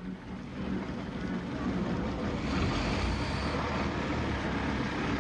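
Narrow-gauge diesel railcar running close past, a steady rumble of engine and wheels that swells over the first second or two and then holds.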